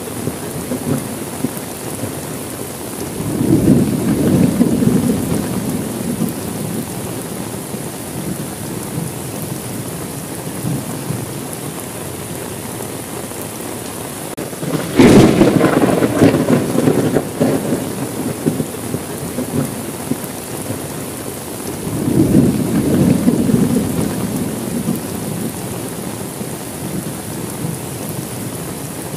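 Steady rain with three rolls of thunder: a low rumble a few seconds in, a sharper, louder crack about halfway through that rumbles on for a few seconds, and another low rumble near the end.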